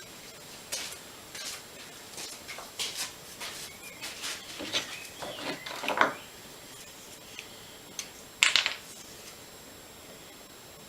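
Irregular light clicks, taps and knocks of small objects being handled on a workbench for about six seconds, then a louder, brief rasping clatter near the end.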